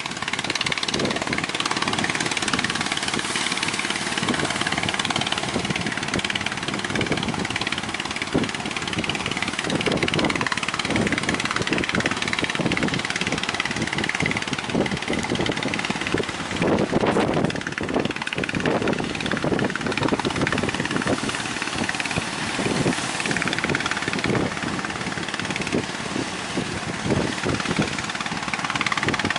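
Strong wind buffeting the microphone: a steady rushing noise with irregular low gusty thumps that swell most in the middle stretch.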